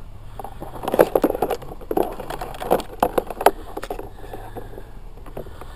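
Irregular sharp clicks and knocks of close handling, bunched between about one and three and a half seconds in, over a low steady rumble.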